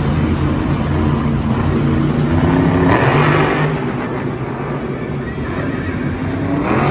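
Background music, mixed with a toy RC monster truck driving.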